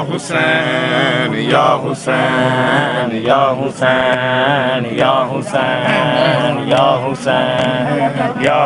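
A man chanting a noha, a Muharram lament, unaccompanied in long sliding phrases broken by short breaths. A short sharp slap keeps time about every second and a half.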